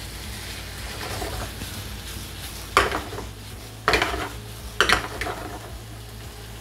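Wooden spatula stirring a thick cooked dal-and-vegetable mixture in a non-stick frying pan, with three sharp knocks of the spatula against the pan, about a second apart, from about three seconds in.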